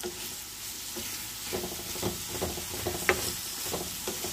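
Sliced Chinese potol (pointed gourd) and eggs sizzling steadily in a metal frying pan. A wooden spatula stirs and scrapes through them in short repeated strokes from about a second and a half in, with one sharper knock about three seconds in.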